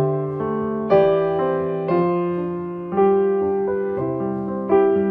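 Background piano music: calm chords struck about once a second, each fading before the next.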